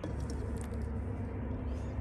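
Steady low rumble with a faint steady hum through it and a few light clicks.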